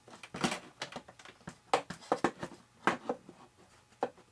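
Irregular light clicks and taps of fingers handling the servo and plastic parts in the servo bay of a foam RC airplane fuselage, about a dozen short knocks, the sharpest near the middle.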